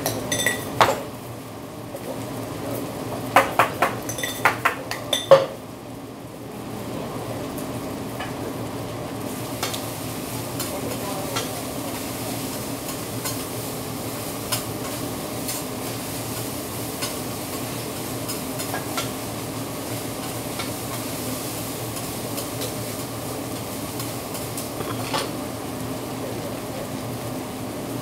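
Fried rice sizzling on a hot teppanyaki griddle while a metal spatula clacks and scrapes on the steel plate. Sharp clacks crowd the first few seconds, then a steady sizzle with only occasional taps.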